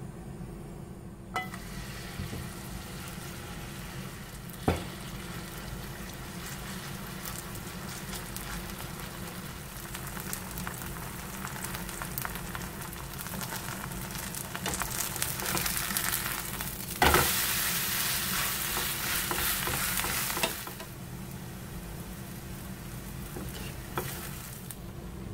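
Chive-and-acorn-flour pancake batter sizzling and crackling in hot oil in a frying pan, starting about a second in. About two-thirds of the way through, a sudden louder burst of sizzling lasts a few seconds as the pancake is turned over onto its raw side, then it settles back. A steady low hum runs underneath.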